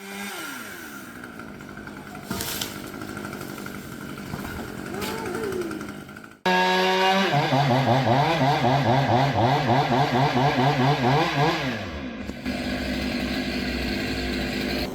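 Stihl chainsaw engine running: its note falls away at first, then about six seconds in it jumps to full throttle, loud, with the pitch wavering up and down about twice a second, before dropping back near twelve seconds to a steadier run.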